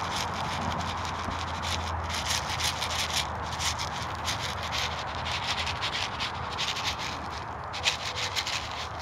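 Hens pecking at scattered mixed grain on dry grass and straw, a rapid irregular ticking, with grain pattering down from a plastic scoop.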